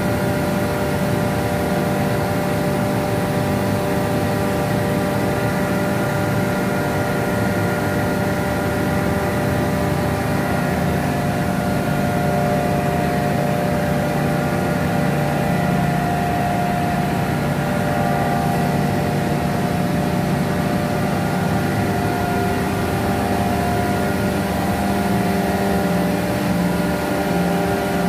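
Rotary screw air compressor running steadily: a low mechanical drone with several steady whining tones over it.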